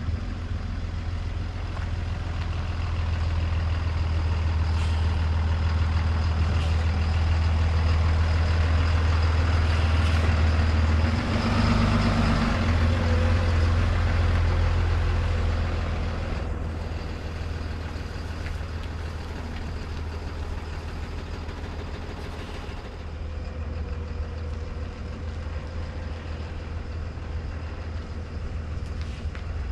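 Tow truck engine running as the truck drives, the low drone building over the first ten seconds or so and changing around eleven seconds in, then settling to a quieter, steady run.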